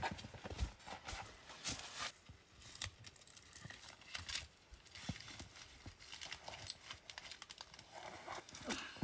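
Irregular wooden knocks and thuds of cut firewood rounds being picked up, carried and set down, with footsteps in snow.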